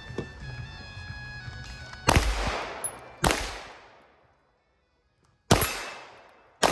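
Four single pistol shots from a Taurus TX22 .22 LR semi-automatic, fired at a slow, deliberate pace: two about a second apart starting two seconds in, then two more about a second apart near the end. Each shot is a sharp crack that trails off in echo.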